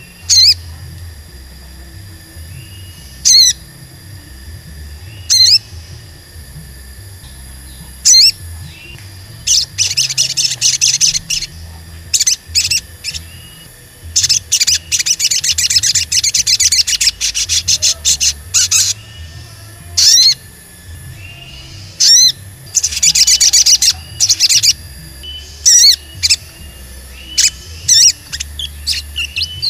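Olive-backed sunbird calling: sharp, high single 'cuit' notes every two to three seconds, broken by three bursts of fast, high twittering chatter, the longest lasting about four seconds near the middle.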